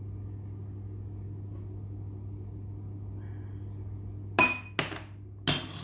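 Three sharp, ringing clinks of kitchenware knocked together, two close together about four and a half seconds in and a louder one near the end, over a steady low hum.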